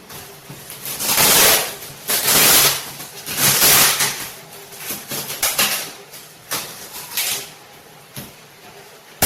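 Cardboard packaging being handled, in three strong scraping, rustling bursts of under a second each in the first four seconds, then lighter rustles.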